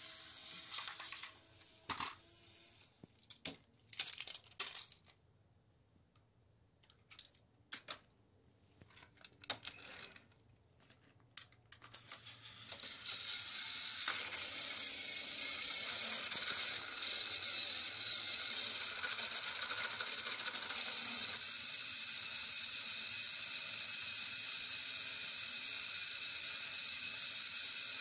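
Clicks and clatter of toy trains being handled and set on plastic track. About thirteen seconds in, the motors and gearboxes of two battery-powered toy train engines start a steady whir as they push against each other on the track.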